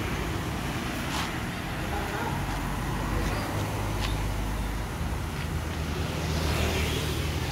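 Steady low rumble of roadside traffic, with a few light clicks.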